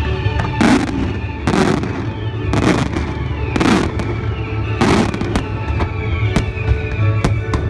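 Fireworks display: many sharp bangs and pops, with five louder hissing bursts about a second apart as rockets go up and shells break. Music with steady sustained notes plays underneath.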